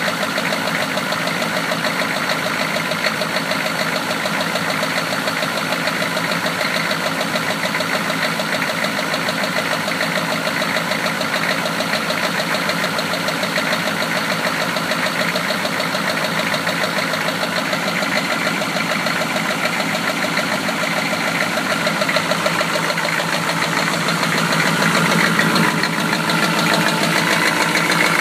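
1993 Chevy engine running at idle with a steady, rapid rhythmic knock, the rod knock of a worn connecting-rod bearing. It grows a little louder over the last few seconds.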